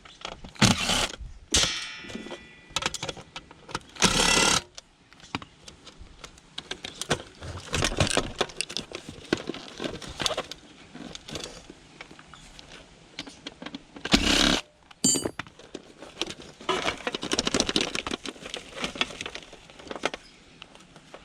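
Metal parts and hand tools clinking and rattling as an air conditioning unit is taken apart, with a few short, louder bursts of clatter or a power tool.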